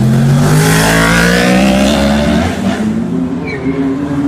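Four-cylinder sport motorcycle accelerating hard, its engine pitch rising steeply through the revs, then fading about three seconds in. A lower, steadier engine hum runs underneath.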